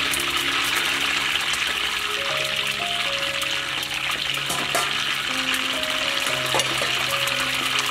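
Food deep-frying in a wok of hot oil: a steady, dense sizzle. Soft background music of held notes plays underneath.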